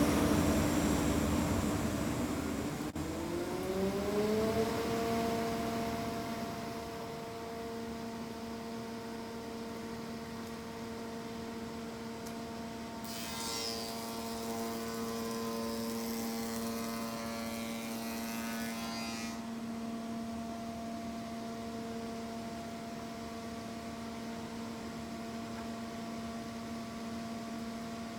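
Electric motor of a woodworking machine: a noisy cut in the first few seconds, then the motor's hum rises in pitch and settles into a steady tone as it runs free.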